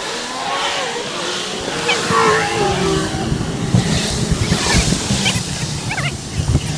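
Wind buffeting the microphone on a bike ride, sped up to four times speed, with a gliding tone in the first half and high warbling chirps near the end.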